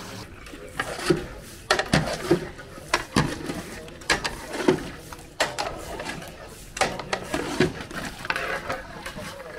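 Irregular knocks and scraping strokes, roughly one or two a second, some with a brief ringing tone, like tools or utensils being worked.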